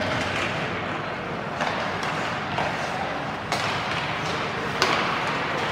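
Ice hockey play heard from the stands: steady arena noise with faint voices, broken by three sharp clacks of stick and puck about one and a half, three and a half and five seconds in.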